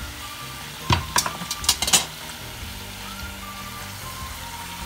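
Hot oil sizzling steadily as a thin rolled-dough katori cup deep-fries in a steel saucepan, with a quick run of sharp clicks about one to two seconds in.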